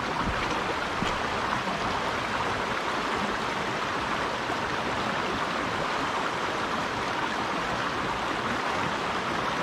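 Shallow mountain stream running over rocks and riffles: a steady rush of water.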